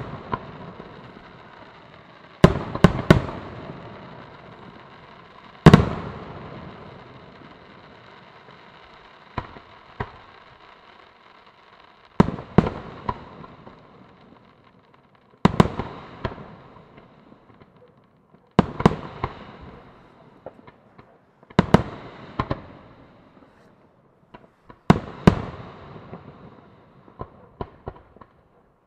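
Fireworks display: aerial shells bursting with sharp reports about every three seconds, often two in quick succession, each trailing off in a fading rumble.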